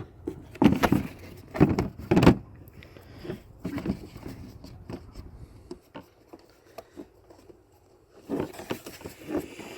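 Handling of plastic windshield-washer parts and hoses: a series of irregular knocks, clicks and light rattles, a cluster in the first couple of seconds and another near the end.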